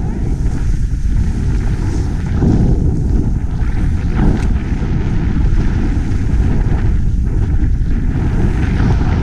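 Wind rushing over the microphone of a camera carried by a snowboarder riding down through deep powder, together with the hiss of the boards in the snow. It is a loud, steady rush with a couple of swells.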